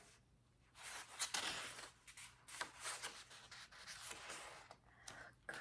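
Faint rustling and soft rubs of paper as a hardcover book's pages are turned and handled.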